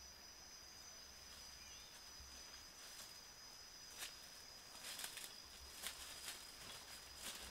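Footsteps crunching dry leaves and snapping twigs on a forest floor, starting about four seconds in as a handful of sharp crackles. Under it runs a faint, steady high-pitched drone.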